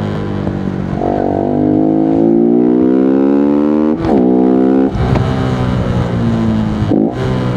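Voge 125R's 125 cc single-cylinder engine running under way, its pitch climbing steadily as the bike accelerates, with quick rev changes about four seconds in and again near seven seconds, typical of gear changes.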